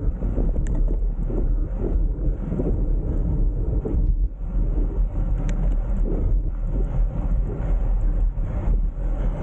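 Wind buffeting the microphone of a camera on a moving bicycle: a steady, loud, unpitched low rumble that wavers without rhythm.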